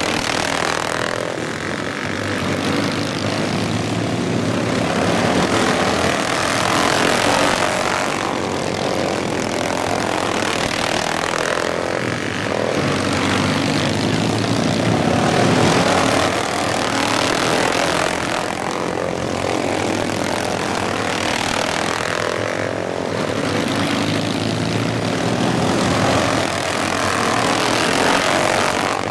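Several racing lawn mower engines running hard around a dirt oval. The engine note swells and fades every few seconds as the mowers pass in turn.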